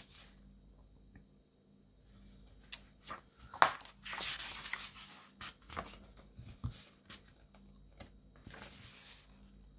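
Pages of a paper booklet being turned and handled: quiet at first, then a few sharp crackles and rustles of paper from about three seconds in, with softer rustling after.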